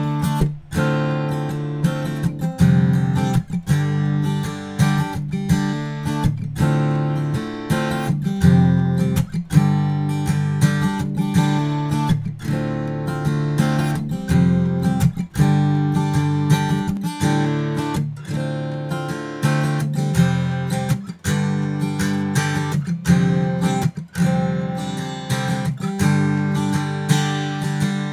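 Alvarez acoustic guitar with Elixir strings strummed with a Dunlop Jazz III pick, playing chords in a steady strumming rhythm.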